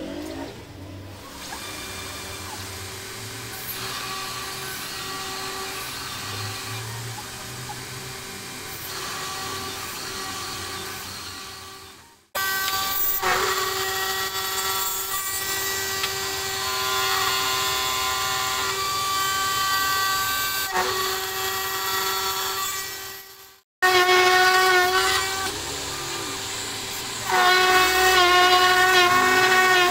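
DIY CNC router's spindle running with its end mill cutting circles in 3 mm sheet, white acrylic and then aluminium: a steady whine with a higher, squealing tone from the cut. The sound breaks off abruptly twice, about 12 and 24 seconds in. Near the end a louder, wavering squeal from the cutter in the aluminium comes in for about two seconds.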